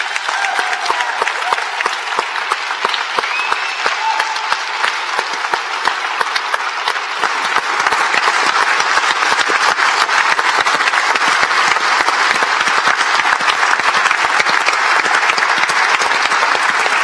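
Large audience applauding, the clapping growing louder about halfway through and keeping on.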